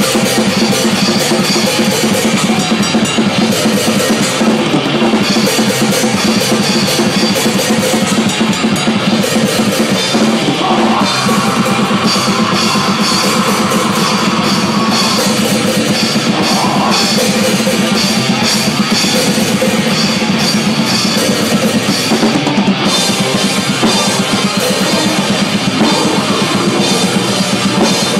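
A live metal band playing, with the drum kit loudest up close: fast, dense bass drum, snare and cymbal hits over the rest of the band.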